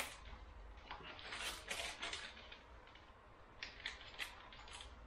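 Intermittent crinkling rustles of a plastic desiccant packet being handled and picked at to open it, with a few light clicks.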